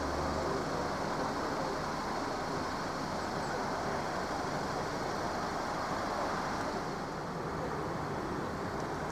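Steady road traffic noise, a continuous wash of passing cars.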